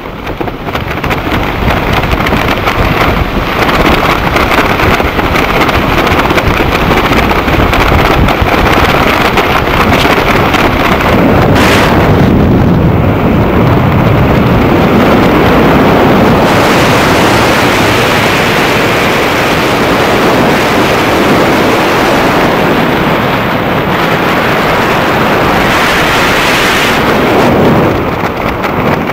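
Loud, steady rush of freefall wind buffeting a skydiver's helmet-camera microphone. It eases near the end as the parachute opens.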